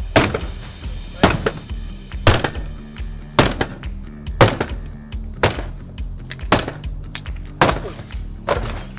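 Sledgehammer striking a GRP foam-filled composite door again and again, about one blow a second, nine blows in all, over background music.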